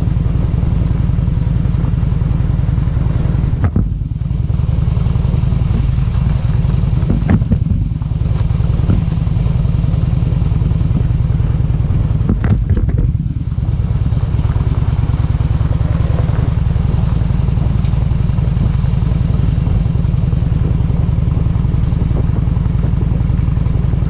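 A motor vehicle's engine running steadily under a wash of wind or road noise. The level dips briefly, with a click each time, about four, eight and thirteen seconds in.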